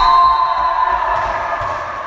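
Shouting and cheering from volleyball players and spectators the moment a point is won. It starts suddenly with several held voices, loud for about a second, then tails off.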